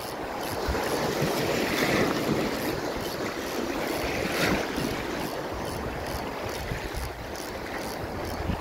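Sea waves washing over shoreline rocks, a steady rush that swells about two seconds in and again near four and a half seconds, with wind buffeting the microphone.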